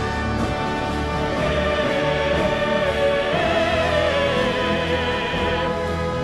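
Live orchestral music with a choir and operatic solo singing. From about three seconds in, a voice holds a long note with a wide vibrato over the orchestra.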